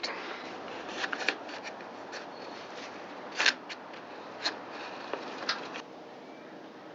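Scattered clicks and scrapes of hands working on a chainsaw's recoil pull starter, which will not retract. The loudest click comes about three and a half seconds in.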